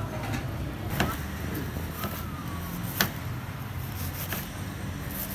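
Knife chopping iceberg lettuce on a plastic cutting board, heard as two sharp knocks about two seconds apart over a steady low background rumble.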